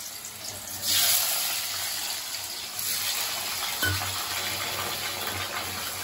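Potato wedges frying in hot mustard oil in an iron kadhai: the sizzling jumps up sharply about a second in as the potatoes go into the oil, then settles into a steady frying hiss. A short clink sounds near the four-second mark.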